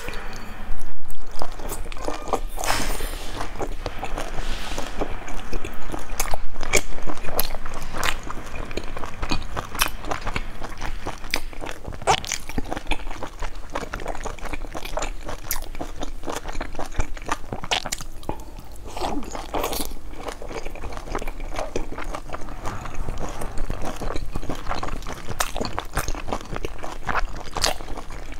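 Close-miked eating of pan-fried dumplings: bites, wet chewing and a steady run of sharp mouth clicks and smacks, with louder stretches about a second in and again around six seconds in.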